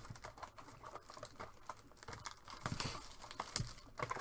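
Crinkling and tearing of plastic wrapping as a box of trading cards and its packs are opened, in a run of small irregular crackles and clicks.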